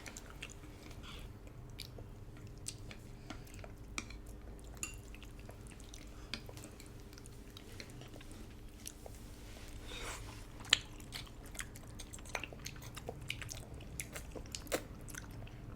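Close-miked chewing of braised-duck noodle soup: soft wet mouth sounds with many small scattered clicks and smacks, over a faint steady hum.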